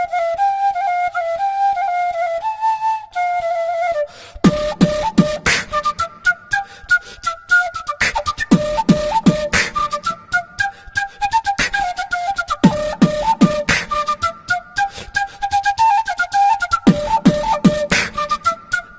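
Flute-led ringtone tune: a flute melody plays alone, and about four seconds in a percussive beat of low kicks and sharp clicks joins under it.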